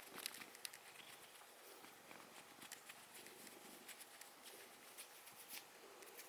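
Near silence: room tone with faint, scattered light clicks.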